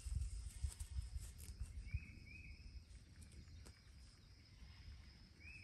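Quiet outdoor ambience: a faint steady insect drone, an irregular low rumble in the first two seconds, and a bird giving two short chirps about two seconds in and two more near the end.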